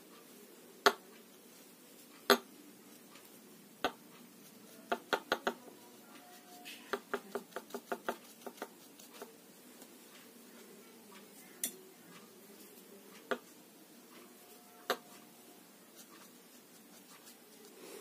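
Hard clicks and clinks, like utensils knocking on dishes: single knocks every second or two, a run of four about five seconds in, and a quicker run of about ten a couple of seconds later.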